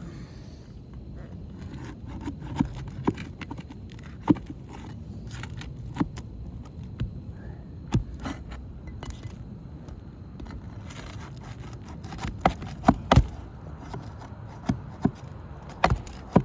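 Scraping and irregular sharp clicks and taps of a tool working under three-tab asphalt shingles, prying at the roofing nails to lift a shingle. A cluster of louder knocks comes about three-quarters of the way through.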